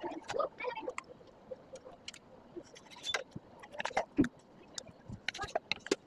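Knife slicing raw goat testicles (kapoora) on a wet wooden board: irregular taps and clicks of the blade on the wood, with wet squelching of the slippery flesh. The loudest tap comes about four seconds in.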